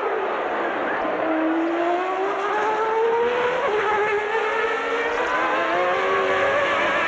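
Formula One race cars accelerating, several engines overlapping, each note rising steadily and dropping back briefly at each upshift, over a steady background noise.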